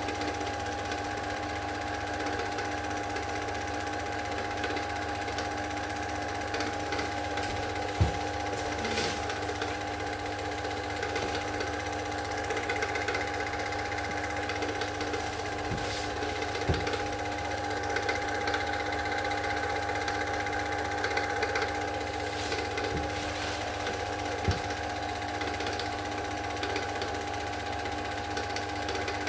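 Super 8 film projector running steadily: a constant mechanical whirr with a steady hum, broken by a few sharp clicks.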